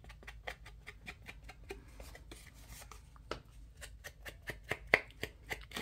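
A foam ink-blending tool dabbing dark distress ink onto the edges of a cardboard tag: rapid soft taps, several a second, with one sharper knock about five seconds in.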